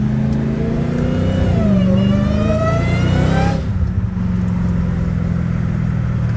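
Dodge Charger Hellcat Redeye's supercharged 6.2-litre V8, with a cat-back exhaust, accelerating. The revs dip at a gear change just under two seconds in and climb again. At about three and a half seconds in they drop off to a steady lower drone as the throttle is lifted.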